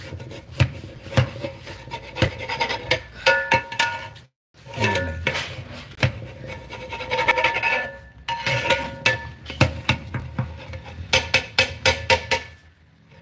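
A long metal stirring rod scrapes and knocks against the inside of a large aluminium degh while turning cooked rice. The pot rings at a few fixed pitches with each stroke. The stirring mixes the moist rice from the bottom of the pot up through the drier top layer.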